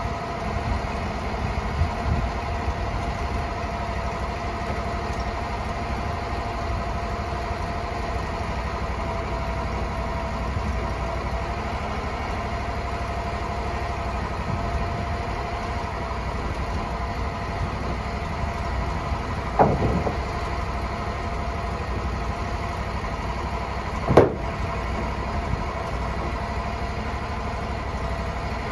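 Sawmill engine running steadily at idle, with two sharp knocks near the end, the second the louder.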